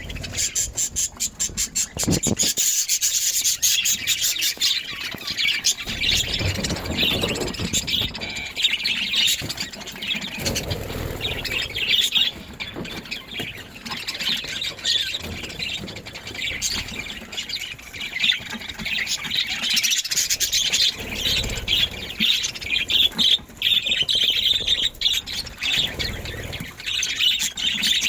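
Budgerigars chirping and chattering without a break, with patches of scratching and rubbing now and then.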